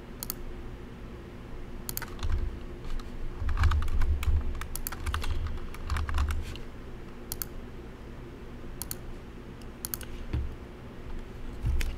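Computer keyboard keys and mouse buttons clicking at irregular intervals, with a few dull low thumps in the middle.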